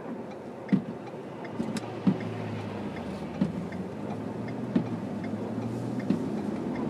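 A car driving on a wet, snowy road, heard from inside the cabin: a steady engine and tyre drone. The windshield wipers knock at the end of each sweep, about every second and a half.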